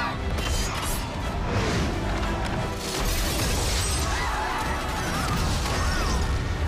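Film battle soundtrack: dramatic music mixed with crashing and smashing sounds.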